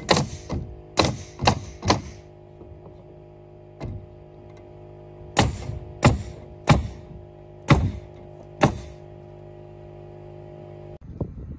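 Pneumatic roofing cap nailer firing about ten times: a quick run of five shots in the first two seconds, then after a pause five more about a second apart, each a sharp crack. A steady hum runs underneath and cuts off near the end.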